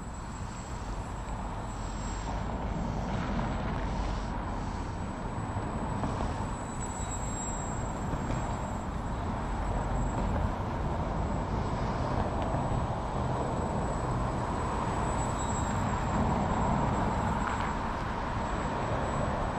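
Electric motor and propeller of a small foam 3D RC airplane in flight, a buzzing whine that swells and fades as it throttles and changes distance, over a low steady rumble.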